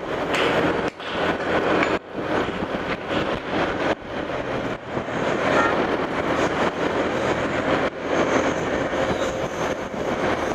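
Steady traffic and road noise of a vehicle travelling along a busy highway, with a low engine hum underneath.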